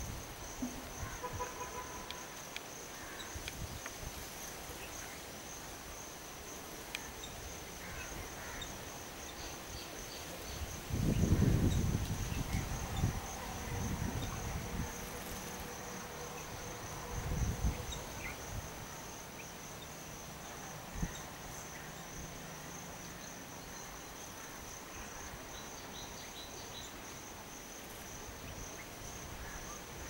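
Steady, high-pitched drone of insects, with a low rumble about eleven seconds in and a shorter one about seventeen seconds in.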